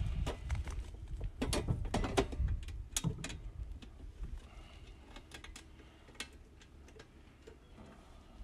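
Sheet-metal cover of an outdoor spa disconnect box clicking and rattling as it is seated and its set screw is turned with a screwdriver. There is a cluster of sharp metallic clicks in the first few seconds, then only scattered faint ticks.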